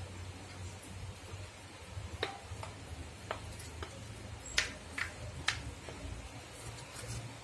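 Sparse light clicks and taps, about seven over a few seconds, as cups of rangoli powder are handled and set down on a marble floor, over a low steady hum.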